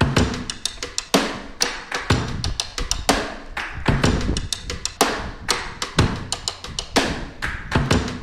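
Background music with a steady, percussion-led beat: a strong drum hit about once a second, with lighter taps in between.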